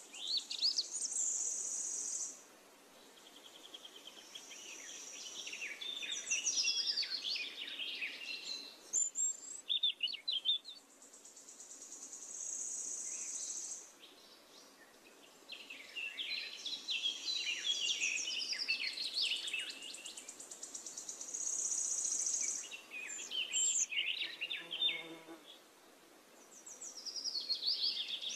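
Songbirds chirping and warbling in rapid high-pitched phrases that come and go in clusters. High buzzy trills a second or two long recur every few seconds.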